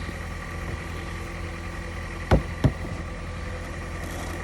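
Car engine idling with a steady low hum; a little past halfway, two loud thumps land in quick succession.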